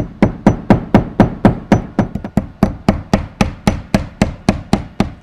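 Hammer driving nails into a cellular PVC siding panel: a rapid, even run of about twenty blows, four a second.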